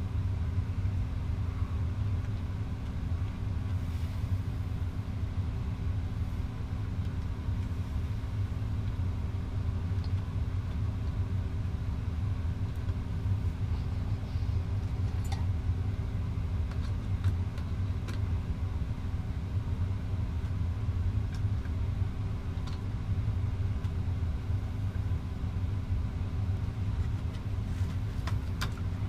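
Steady low rumble with a constant hum, like a machine or motor running, unchanged throughout, with a few faint clicks.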